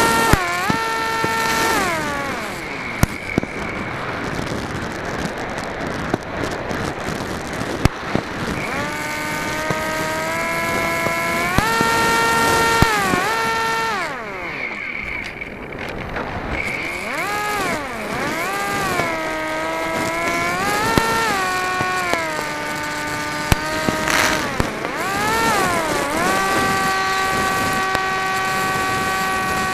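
RC flying wing's motor and propeller, picked up by its onboard camera, whining at a pitch that rises and falls as the throttle is opened and cut back again and again, with steady wind rush over the microphone. The pitch drops away for several seconds early on, and the whine holds steady near the end. A few short sharp pops are scattered through it.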